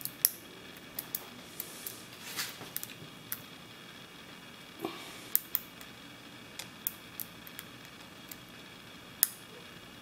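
Lock pick and tension wrench working the pin tumblers of a brass Commando 'US' military padlock: irregular small metal clicks and ticks, a few of them sharper.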